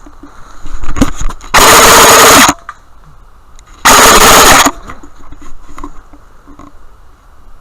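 Airsoft electric rifle firing two full-auto bursts close to the microphone, each just under a second long and about two seconds apart, loud enough to clip, with a few scattered clicks just before the first.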